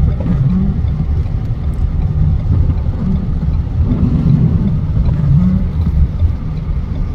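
Steady low rumble of noise inside a car, its loudness wavering.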